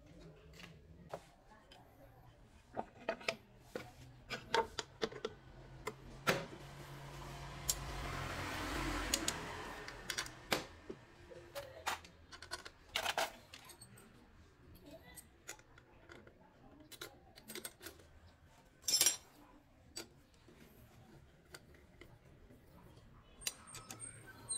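Scattered metal clicks and clinks of hand tools and bolts as the alternator cover of a Honda Wave S100 engine is fitted and bolted down with a T-handle socket wrench. A soft rushing noise swells and fades about halfway through.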